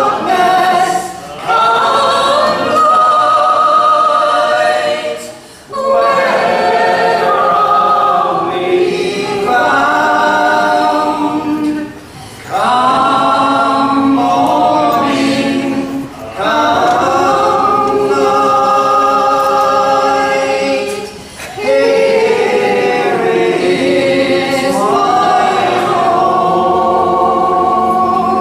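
Unaccompanied folk song sung by a man and a woman together, in phrases of a few seconds with short pauses for breath between them.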